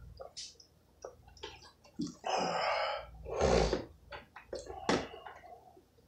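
Drinking from a plastic water bottle, then the bottle is lowered and handled, its plastic clicking and crackling. There are two louder rushes of noise, about two and three and a half seconds in.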